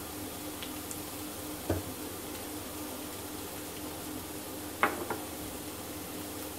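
Chopped garlic frying gently in oil in a nonstick wok, a low steady sizzle, waiting to turn light brown. Two sharp knocks cut through it, one about two seconds in and a double one about five seconds in.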